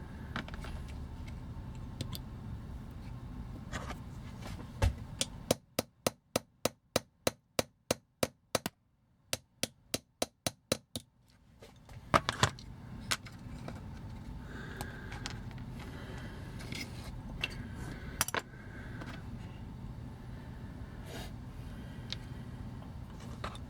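Small hammer tapping a punch to drive out the metal pins of a die-cast toy robot: a run of sharp, even taps, about three a second, with a short break in the middle. Scattered clicks of tool handling come before and after, over a steady low hum.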